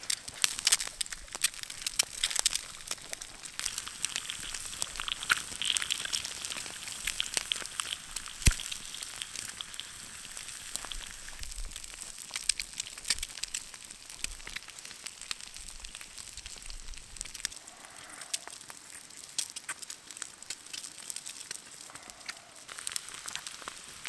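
Eggs frying in hot oil in a pan over an open wood fire, sizzling and spitting, mixed with the crackle and pops of the burning wood, with one sharp pop about eight seconds in.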